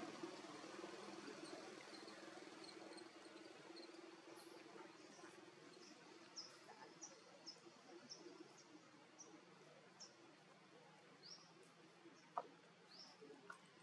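Faint outdoor ambience of small birds giving short, high chirps, some rising in pitch, scattered irregularly throughout. A faint low hum fades away over the first half, and one sharp click stands out near the end.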